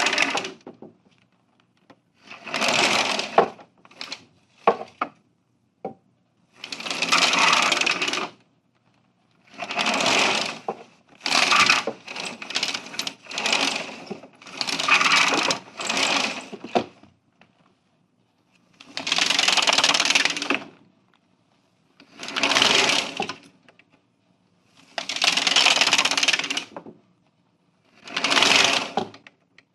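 Slatted window roller shutter rattling as it is run up and down in about ten short bursts of one to two seconds, separated by pauses, with a few sharp clicks between some runs.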